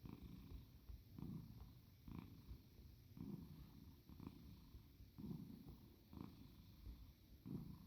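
A chubby British shorthair cat breathing hard: a low, purr-like sound swells with each breath in and out, about one a second.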